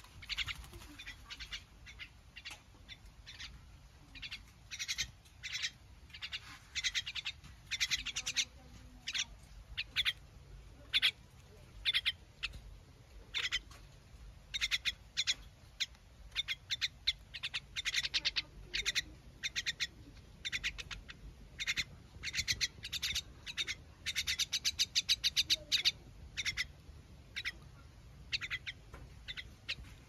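Young common mynas calling over and over while being hand-fed: short begging calls in irregular bursts, with a fast run of calls about three-quarters of the way through.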